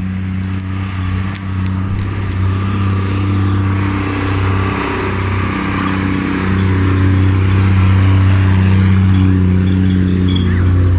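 A motor vehicle's engine running steadily at a low idle-like pitch, with a haze of higher noise over it, getting a little louder about halfway through.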